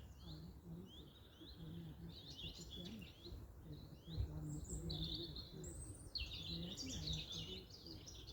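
Small songbirds chirping and singing, many quick overlapping calls and trills throughout, busiest near the end, over a faint low murmur.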